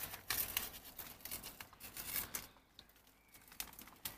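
Plastic biscuit wrapper crinkling and tearing as it is opened by hand: a run of sharp crackles for the first two and a half seconds or so, then only faint rustling.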